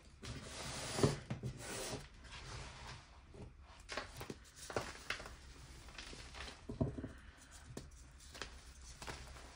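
Hands crushing and crumbling blocks of reformed gym chalk, giving irregular dry crunches with soft powdery crumbling between them; the loudest crunch comes about a second in.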